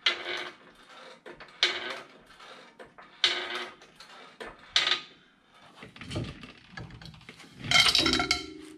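Hydraulic floor jack being pumped by its long handle: four short metallic clanks about a second and a half apart as it raises the lower control arm to take tension off the ball joints. Near the end, louder metal clanking and ringing as a steel bar is handled against the suspension.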